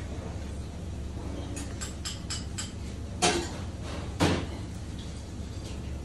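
A quick run of small clicks, then two sharp knocks about a second apart, over a steady low hum: knocking and clicking from hands handling raw prawns and fish against hard kitchen surfaces.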